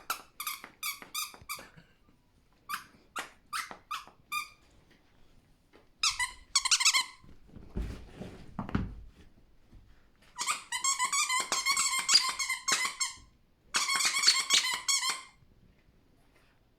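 A dog's rubber squeaky toy being squeaked over and over as the Chinese Crested dog chews it. There are single squeaks in the first few seconds, then two long runs of rapid squeaking in the second half, with some rustling and thumps in between.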